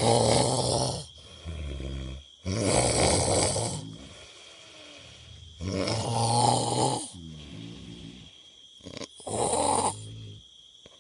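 Heavy snoring: four loud, raspy snores about three seconds apart, each followed by a lower, pitched rumble that falls in pitch.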